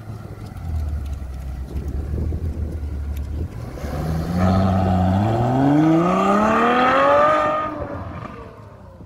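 Ferrari 812 Superfast's naturally aspirated V12 running low and steady at first, then, about four seconds in, accelerating hard away, its note climbing for about three seconds before fading into the distance.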